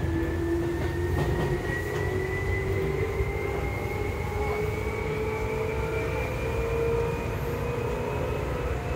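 Seibu 2000 series field-chopper-controlled electric train heard inside the passenger car: the traction motors whine in two tones that rise steadily in pitch as the train accelerates, over a steady rumble of the wheels on the rails.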